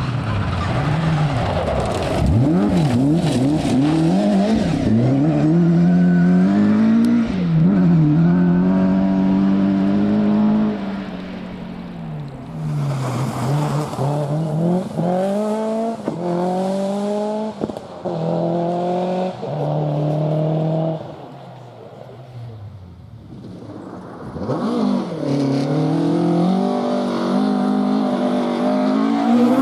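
Rally car engine revving hard, its pitch swinging up and down through corners, then climbing and dropping several times as it shifts up through the gears. It fades for a few seconds, then a car is heard revving again near the end.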